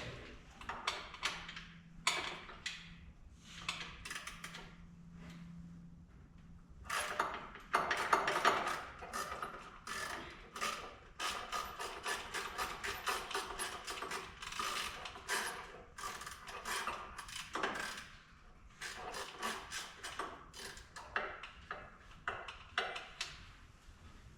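Irregular clicking and rattling of hand work on a vehicle: tools and metal or plastic parts being handled, busiest from about seven seconds in to sixteen. A faint steady hum runs under the first several seconds.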